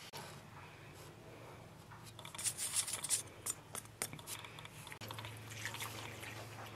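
Hands working flour in a steel bowl: rustling, rubbing and light scrapes against the metal, with a burst of sharper crinkling and clicks about two to three seconds in.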